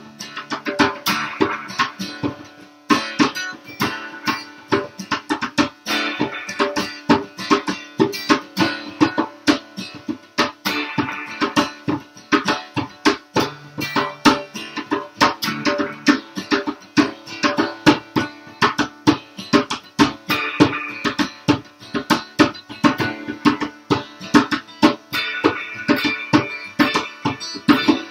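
Live instrumental jam: acoustic and electric guitars playing over a steady djembe hand-drum beat, with quick, even drum strokes throughout.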